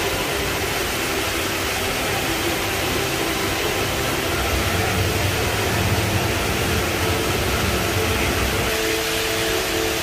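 Steady rushing of the Rain Vortex, a very tall indoor waterfall plunging from a glass dome into a pool below.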